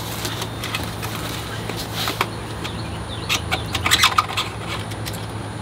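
Handling noises: a foam packing sheet rustling, with a few clicks and scrapes as the e-bike's seat is fitted onto its seat post, over a steady low hum. The clicks and rustles cluster about two seconds in and around the four-second mark.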